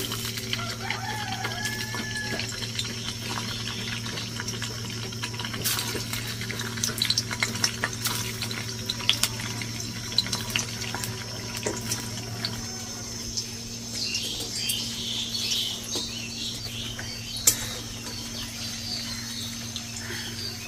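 Paneer cubes frying in hot mustard oil in a kadai over a low flame: a steady sizzle with scattered pops and crackles, busiest in the middle. A steady low hum runs underneath and stops about two-thirds of the way through.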